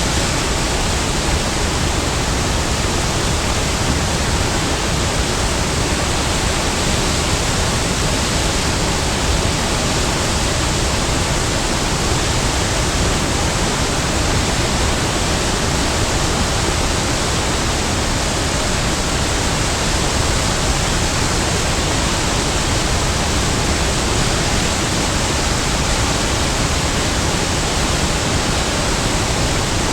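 Big waterfall: falling water rushing in one steady, unbroken noise that doesn't change.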